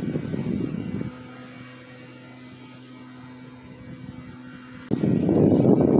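Wind buffeting the microphone: a loud, low rumble for about the first second and again near the end, with a steady low hum in between.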